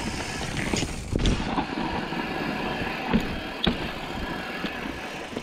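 Mountain bike rolling down a steep, loose, rocky trail: steady tyre and rushing noise, with several sharp knocks and rattles as the bike hits rocks.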